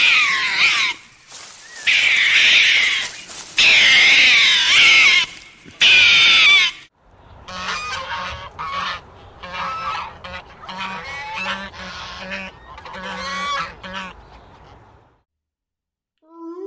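Geese honking: four loud, drawn-out honks, then a run of quieter, shorter calls.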